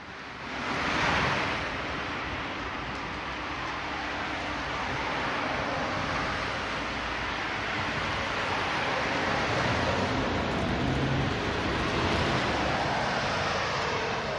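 A steady rushing noise that swells about a second in, holds, and fades out near the end.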